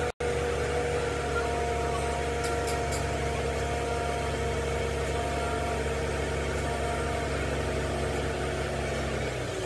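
An engine idling steadily, with a low even hum and a faint higher steady whine over it. The running note changes just before the end.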